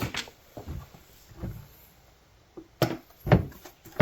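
A few light clicks and knocks of an 8 mm wrench working the axle nut off a plastic RC truck wheel, with the loudest knock near the end.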